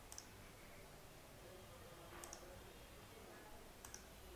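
Three faint computer mouse clicks, spaced a second or two apart, over near-silent room tone.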